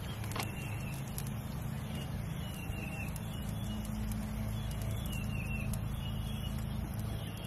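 A steady low mechanical hum, with a bird chirping several times in short falling notes. The sauce being poured makes no clear sound of its own.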